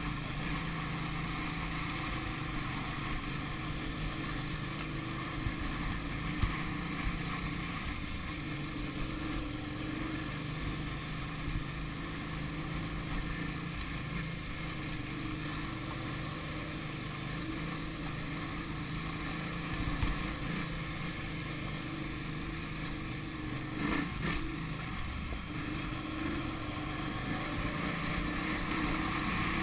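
Off-road motorcycle engine running steadily, heard from the bike itself as it rides over a dirt track, with a few short knocks about three-quarters of the way through.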